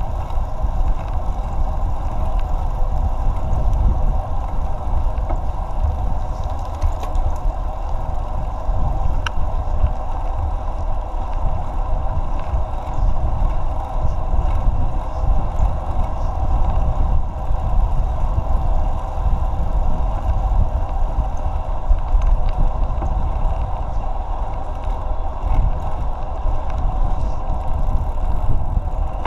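A bicycle riding along a paved trail, heard through a camera mounted on the bike or rider: heavy wind buffeting on the microphone and road rumble, a steady hum, and a few light rattles.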